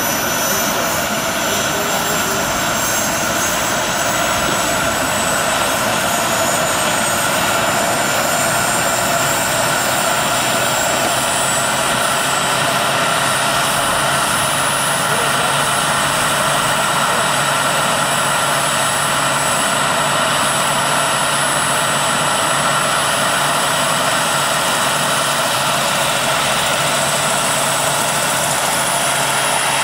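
Giant-scale AH-64 Apache model helicopter's turbine engine running on the ground with its rotors turning. A steady loud rush with a high turbine whine that slowly rises in pitch, and a low hum coming in about a third of the way through.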